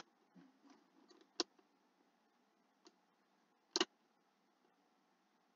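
Computer mouse clicking: a few sharp, separate clicks a second or more apart, one of them a quick double click about four seconds in.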